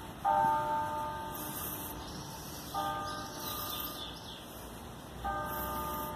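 Church bell tolling: three single strikes about two and a half seconds apart, each ringing on and fading before the next.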